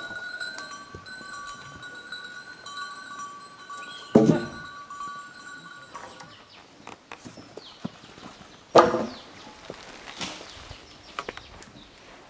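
Goats bleating: two loud calls, about four and nine seconds in, over a steady high ringing tone that stops about halfway through.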